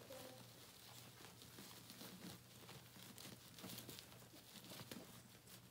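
Faint crinkling and scratching of disposable puppy pads as 17-day-old golden retriever puppies crawl over them, with a low steady hum underneath.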